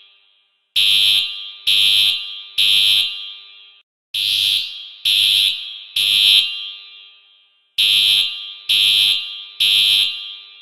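Fire alarm horn sounding the temporal-three evacuation signal: three high-pitched beeps, a pause, and the group repeated three times.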